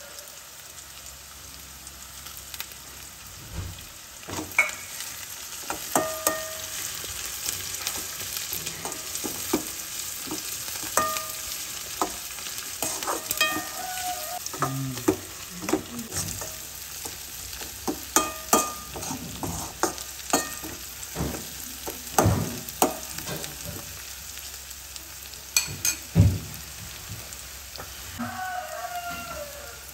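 Sliced shallots sizzling in hot oil in a metal kadai, with a steady hiss. A metal slotted spatula scrapes and knocks against the pan as they are stirred, giving many sharp clicks and a few short squeaky scrapes.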